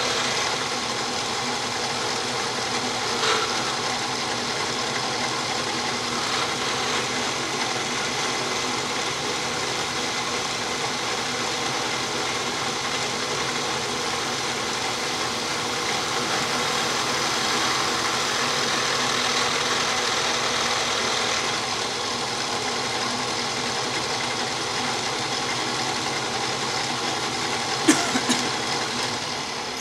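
Homemade lathe driven by an industrial electric drill, running steadily with an even motor hum while a hand-held tool scrapes a spinning white plastic bobbin. A short click comes about three seconds in and a louder brief clatter near the end.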